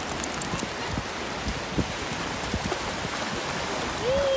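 Small waves of shallow surf washing up the beach and around the legs, a steady hiss of water and foam. A high, drawn-out call starts near the end.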